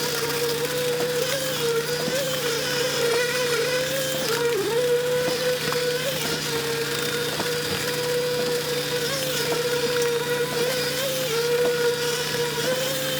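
A machine running with a steady whine that wavers slightly in pitch, over a constant low hum.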